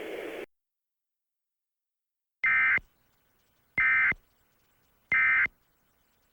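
Emergency Alert System end-of-message signal: three short bursts of SAME data tones, each under half a second and about 1.3 seconds apart, marking the end of the alert.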